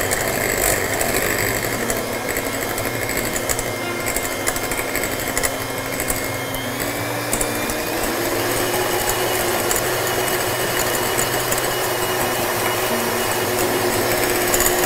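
Electric hand mixer running at high speed, its twin wire beaters whisking egg whites in a glass bowl as they whip up to stiff peaks. A steady motor whine whose pitch steps up slightly about eight seconds in.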